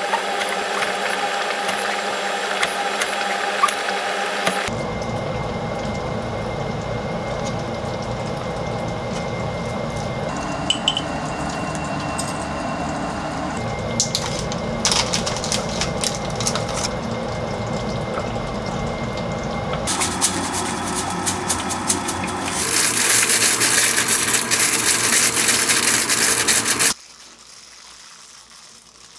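A run of short kitchen food-prep sounds that change abruptly every few seconds, with scattered clicks and knocks over a steady background noise. Near the end a louder rushing noise runs for a few seconds, then cuts off to a quiet hum.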